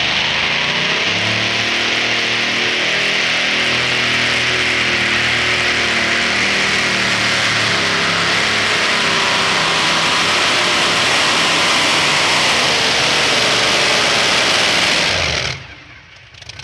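Supercharged engine of a super modified two-wheel-drive pulling truck at full throttle, loud and steady under the load of a pulling sled, its note wavering slightly. The sound drops away sharply about a second before the end.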